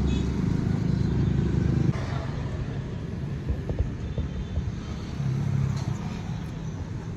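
Low rumble of a nearby motor vehicle's engine with a steady hum. The hum drops away sharply about two seconds in and comes back briefly near the end.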